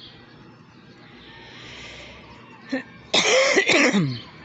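A person coughing once, loudly and close to the microphone, for about a second near the end, after a brief smaller sound just before it.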